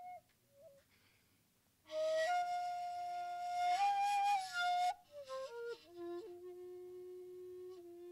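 Shakuhachi, a Japanese end-blown bamboo flute, played solo. A held note stops, and after a pause for breath a loud, breathy note enters about two seconds in and is held for about three seconds with a small step up in pitch. The melody then falls through a few quick notes to a lower, softer long note.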